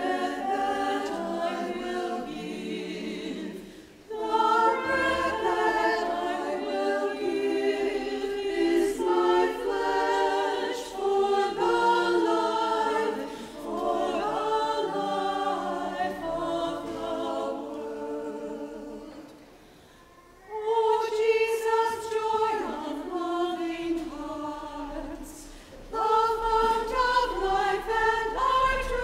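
A choir singing an unaccompanied hymn at Communion, in phrases with brief pauses between them.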